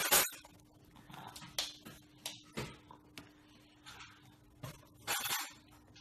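Plastic fork clattering and scraping on a plastic plate: a sharp clack right at the start, a few lighter clicks, and a longer scrape a little after five seconds, over a faint steady hum.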